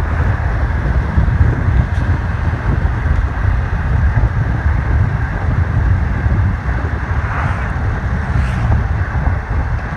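Wind buffeting the microphone of a camera moving along with a group of road cyclists: a steady, loud, low rumble with no distinct events.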